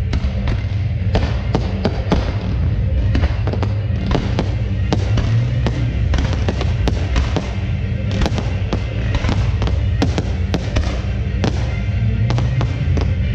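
Fireworks going off in quick, irregular succession, many pops and bangs, over loud music with a heavy bass.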